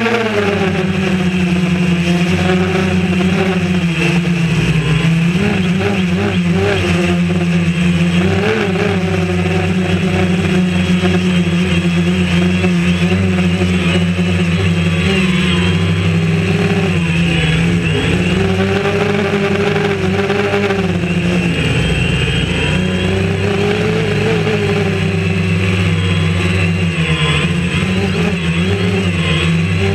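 DJI Phantom quadcopter's four electric motors and propellers whining, heard up close from the camera mounted on the drone. The pitch drops in the first second, then rises and falls as the motor speeds change in flight.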